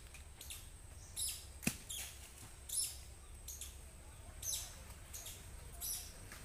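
Faint, short high-pitched chirps repeating roughly once a second from small animals in the trees, with one sharp click a little under two seconds in.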